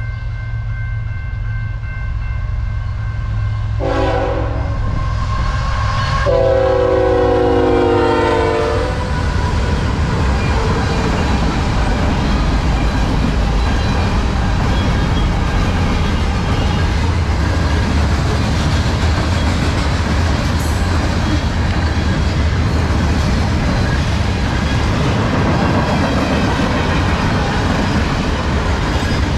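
A CN freight train's locomotive horn gives a short blast about four seconds in, then a long, loud blast from about six to nine seconds that falls slightly in pitch as the locomotives pass the grade crossing. The train then rolls by, and a long string of freight cars makes a steady rumble of wheels on rail with clickety-clack.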